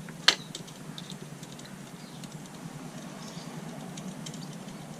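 A few small clicks and ticks of objects being handled, with one sharper click about a quarter second in, over a low steady background hum.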